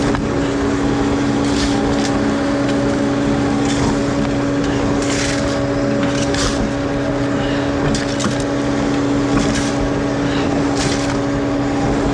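SkyTrak telehandler's diesel engine running at a steady pitch under load while its hydraulic auger bores into rocky ground. Scattered brief crunches and cracks come from the auger breaking through rock and soil.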